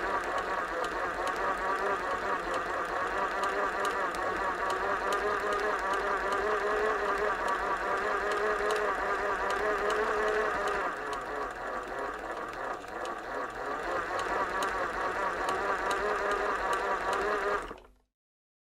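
Sewing machine running at slow speed, a steady rhythmic run of clicks over a hum. It drops a little in level about eleven seconds in and stops suddenly near the end.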